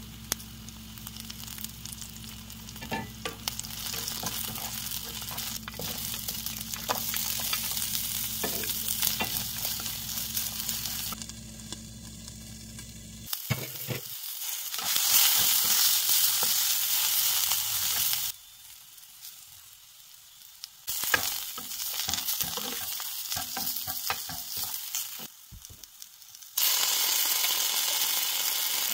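Chopped onions, then capsicum and carrot, sizzling as they fry in a pan. The sizzle grows louder partway through and drops out abruptly twice. A low hum sits under the first half.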